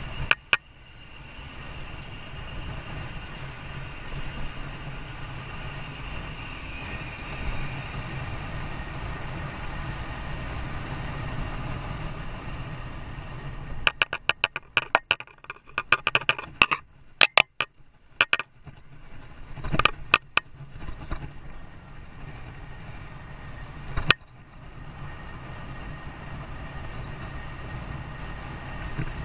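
Steady low rumble of a vehicle in motion. About halfway through comes a run of sharp clicks and knocks lasting several seconds, and a single click a few seconds later.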